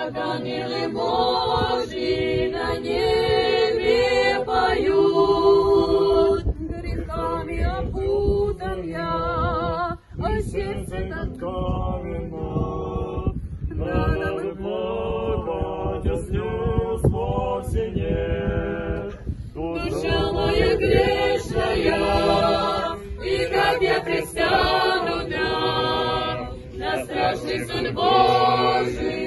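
A group of pilgrims singing an Orthodox spiritual psalm together, unaccompanied, in sustained chant-like phrases.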